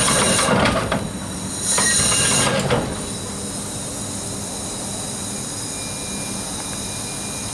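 Liberty ship steam cargo winches running as a load is worked on the hook: two loud spells of steam-driven machinery noise in the first three seconds, then a steady, quieter hiss.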